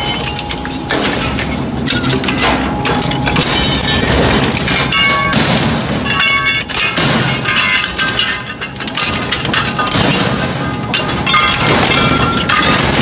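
Industrial twin-shaft shredder's hooked cutter discs chewing up spoked metal wheels. The metal crunches, cracks and clangs continuously, with short ringing tones from the torn pieces.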